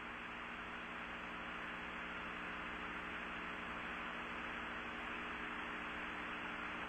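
Steady hiss with a low electrical hum: the background noise of an old broadcast recording's open audio channel, with no announcement.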